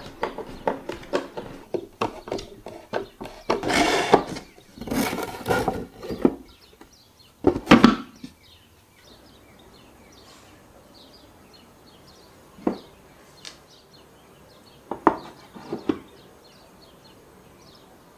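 Wooden panels of a small digging box being handled and screwed together with a hand screwdriver. A busy run of clicks, knocks and scraping lasts about eight seconds, then it goes quieter with a few separate knocks.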